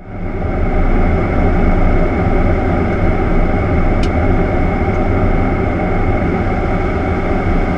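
Steady in-flight cockpit noise of a C-17 Globemaster III, a loud, even rumble that fades in at the start. A faint click comes about four seconds in.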